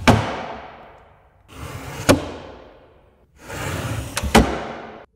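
Wooden table handled three times, each a short sliding rush ending in a sharp wooden knock that dies away over about a second; the last knock is doubled. The sound cuts off abruptly just before the end.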